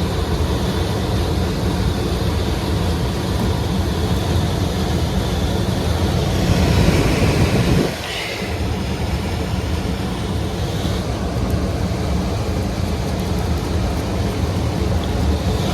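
A machine running with a steady low rumble and hum; the level drops suddenly about eight seconds in, and the running carries on.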